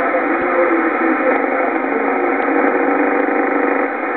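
Weak shortwave signal of Radio Huanta 2000 on 4747.10 kHz, heard through a communications receiver in lower-sideband mode. A steady, narrow-toned hiss of static and band noise runs throughout, with faint wavering broadcast audio barely rising above it.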